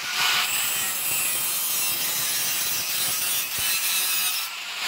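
Angle grinder's abrasive disc cutting into stainless steel square pipe: a steady, loud, hissing grind that eases off briefly near the end.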